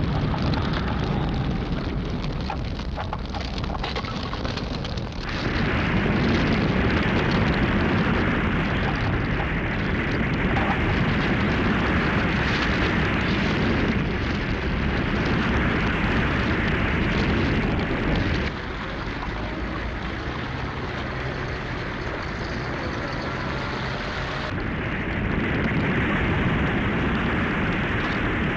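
Wooden huts burning in a large fire: a dense, steady rushing noise. It grows louder about five seconds in, drops back around two-thirds of the way through, and swells again near the end.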